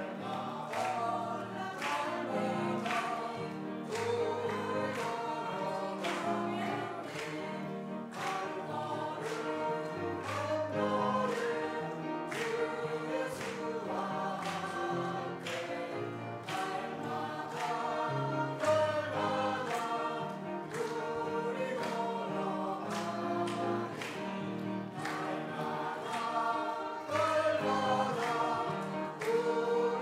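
Mixed group of men, women and children singing a hymn together, with instrumental accompaniment marking a steady beat.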